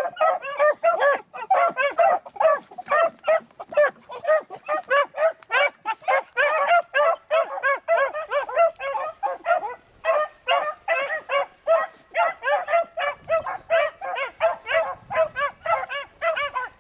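A pack of beagles baying on a rabbit's trail, a rapid run of overlapping pitched calls several a second, with a brief break about ten seconds in. The hounds are in full cry, following the scent of the running rabbit.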